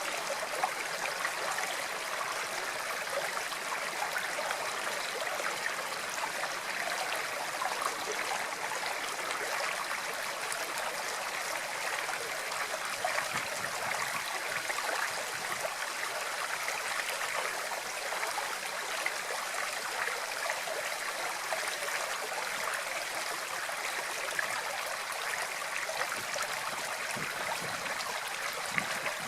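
Water flowing steadily over rocks in a stream, an even rushing and babbling with small splashes.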